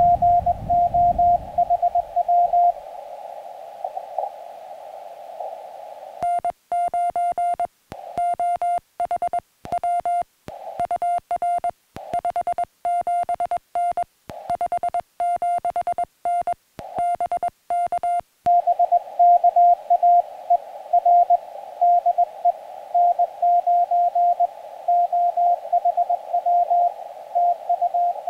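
Morse code (CW) from a portable ham radio transceiver: a tone of about 700 Hz keyed on and off, first heard inside steady receiver hiss. About six seconds in it turns to the clean sidetone of the operator's own sending, with silence between characters, for about twelve seconds. Then the received signal in hiss returns.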